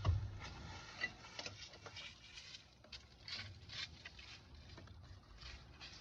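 Scattered light clicks and taps of hand tools and lug nuts while a wheel is being refitted and its nuts done up, with a dull thump at the start.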